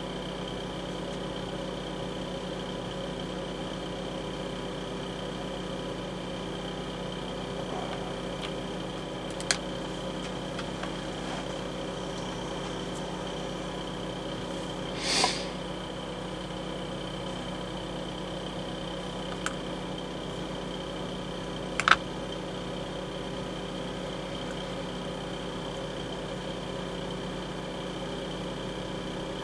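Steady workshop hum, like a running fan, with a few faint sharp clicks and one short rustle about halfway through.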